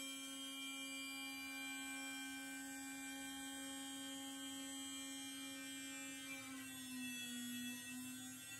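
CNC router cutting a sheet of HDPE: a steady motor whine made of several tones, its pitch dipping slightly about six seconds in and rising back near the end.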